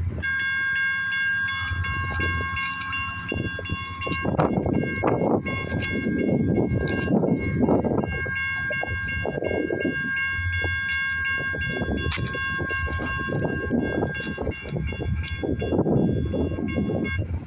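Railroad crossing warning bell sounding continuously, a steady high ringing tone that starts just after the beginning and stops just before the end, as the crossing signals activate for an approaching train. A low rumbling noise runs underneath.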